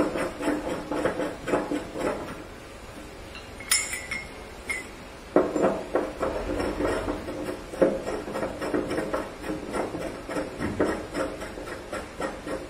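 Shower hanging rods being screwed by hand onto the threaded inlets of a square rain shower head: a run of rapid small clicks and scrapes as the threads turn. A single sharp, ringing clink comes about four seconds in.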